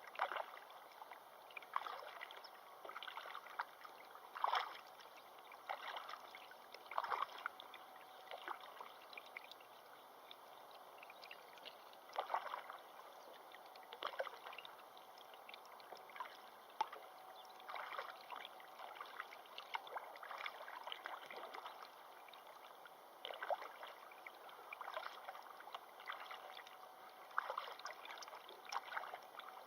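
Water splashing and lapping in small, irregular splashes every second or two, over a faint steady rush of moving water.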